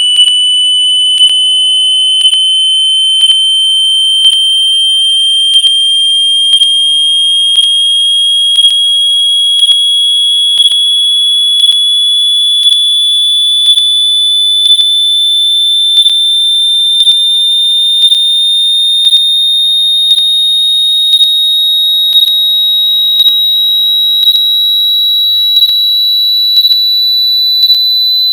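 Electronic hearing-test tone: one high, steady pitch climbing slowly and evenly, with a short tick about once a second.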